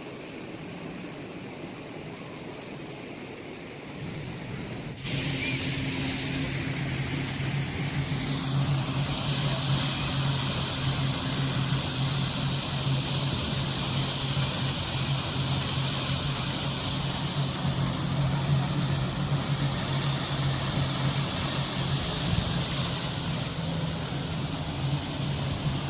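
Steady rushing of a waterfall, cutting in abruptly about five seconds in after a quieter start and growing hissier a few seconds later, with a low steady hum underneath.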